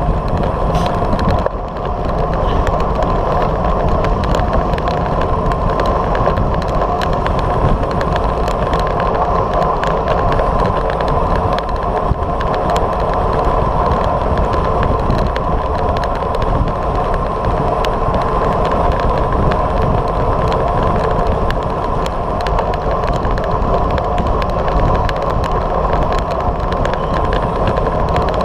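Steady wind rushing over a bike-mounted camera's microphone, with road-bike tyres humming on asphalt, as the bike rides along at speed.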